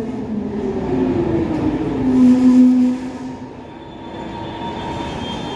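Electric train at a station: its traction motors whine in several tones that fall in pitch as it slows, hold briefly, then fade out about three seconds in, leaving a quieter rumble.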